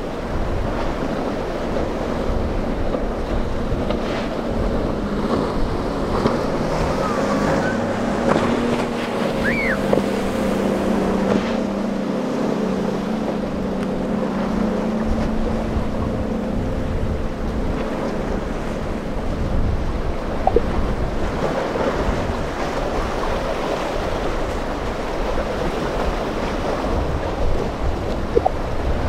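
Wind buffeting the microphone over the wash of waves and surf, with the steady hum of a boat's outboard engines running through the middle stretch, fading out past the middle.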